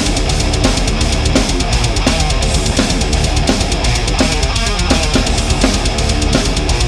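Loud rock music with a steady, driving drum beat.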